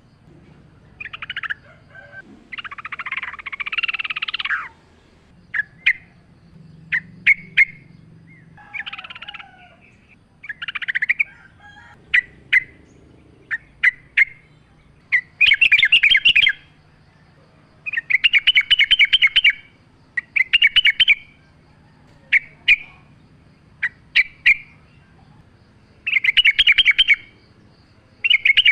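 Yellow-vented bulbul (trucukan) singing: short clear chirps alternating with loud, rapid bubbling chatters about a second long, repeated again and again.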